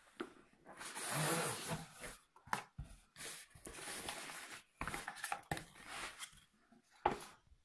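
Cardboard packaging handled by hand: a long scrape as the box is opened, then rustling and tapping as the inner tray, a fabric pouch and a paper leaflet are moved, with a sharp knock about seven seconds in.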